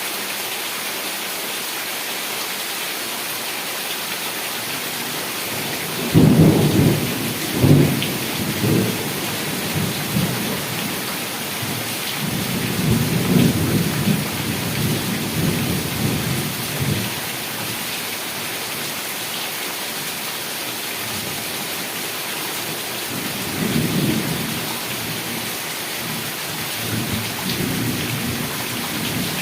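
Heavy rain falling steadily, with rolling thunder: a sudden rumble about six seconds in, a longer one in the middle, and two weaker ones near the end.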